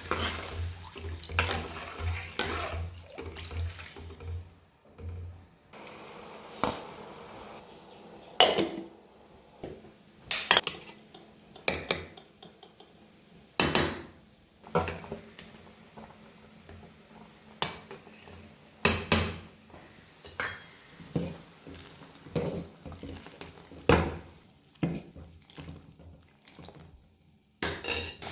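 Metal kitchen utensils clinking and knocking against cooking vessels in many separate, irregular sharp strikes.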